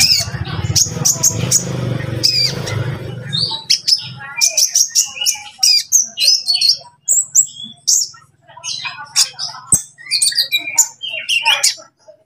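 A kolibri ninja (konin) sunbird calling: a string of rapid, high, sharp chirps and short twitters, thickest from about four seconds in. A low hum runs underneath for the first three seconds or so.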